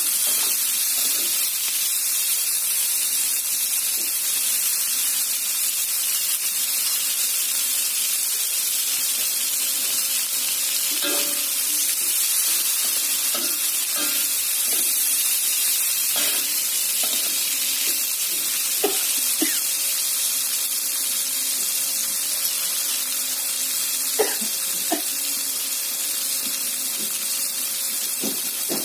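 Clams with tomato and lemongrass frying in a pan with a steady sizzle. There are a few short knocks, mostly in the second half, as the food is stirred against the pan.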